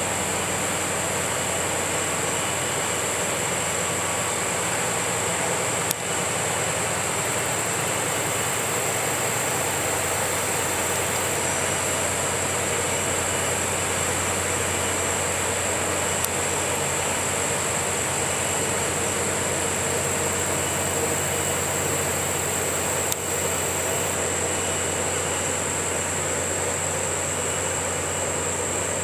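Towboat's diesel engines running in a steady low drone as it pushes its barges by, with the rush of its wash and a steady high-pitched hiss over the top.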